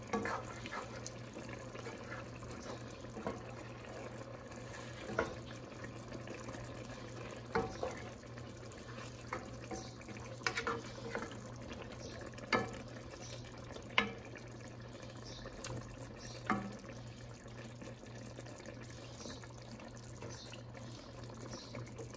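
A wooden spoon stirring chicken pieces in broth in a pot: liquid sloshing, with several sharp knocks of the spoon against the pot, over a steady low hum.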